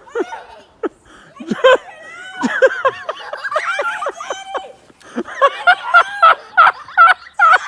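Several people laughing. Voices overlap in the middle, and quick repeated bursts of laughter come in the second half.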